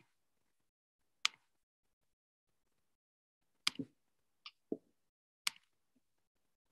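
About six short, sharp clicks and taps at irregular intervals, with dead silence between them, as picked up over a video-call line.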